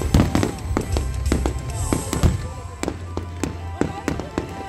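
Fireworks display: an irregular string of aerial shells bursting, with bangs and crackles several times a second, over music played for the show.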